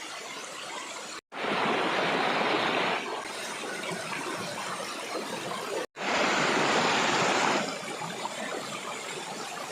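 Waterfall: a steady rush of falling water, broken twice by brief dropouts, after each of which the rush is louder for a second or two.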